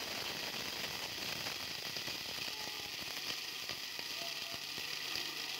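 Black peppercorns being ground in a hand-turned pepper grinder: a steady run of small, rapid crunching clicks.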